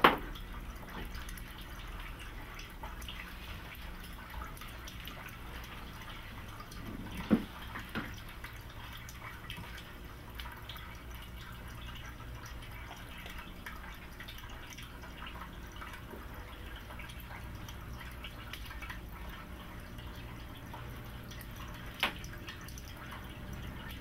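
Quiet room tone, a low steady hum, broken by a few sharp knocks and clicks: a loud one right at the start, another about seven seconds in with a smaller one just after, and one more near the end.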